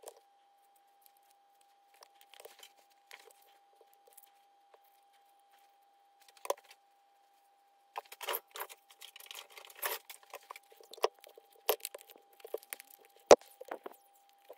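Hands handling a Citroën XM ABS relay's plastic case and pressing its cover back on: scattered small clicks and rustles, busier in the second half, with one sharp knock near the end. A faint steady whine runs underneath.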